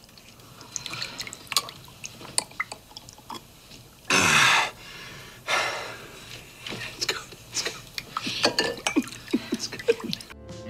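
Soft crackling and scattered clicks, broken about four seconds in by a short, loud hiss that falls in pitch, and a weaker hiss about a second and a half later.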